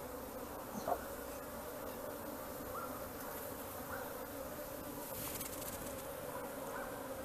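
Honey bees buzzing around the open colony, a steady hum of many bees.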